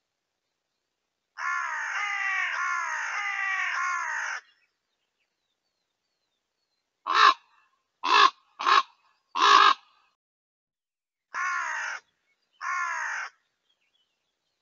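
Common ravens calling as they harass a roosting eagle owl. First comes a run of falling croaks strung together for about three seconds, then four short, loud croaks about a second apart, and two more falling calls near the end.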